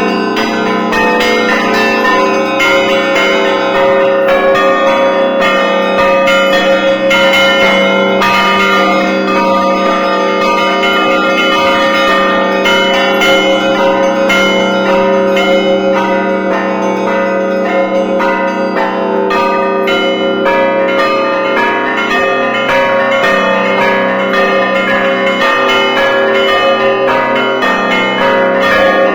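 Russian Orthodox church bells rung by hand: a continuous peal, with smaller bells struck in quick, unbroken patterns over the steadily sounding tones of the larger bells.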